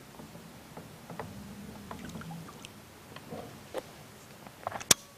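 Faint scattered ticks and small splashes as a topwater plug is worked across a pond's surface from a small boat, with one sharp click just before the end.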